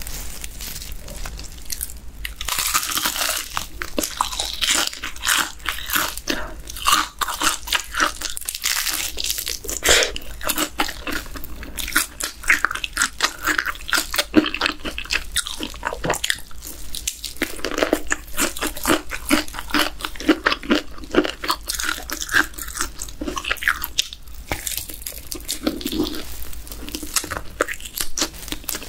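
Close-miked bites and chewing of a cheese-powder-coated fried chicken drumstick, its crisp crust crunching in a dense run of crackles throughout.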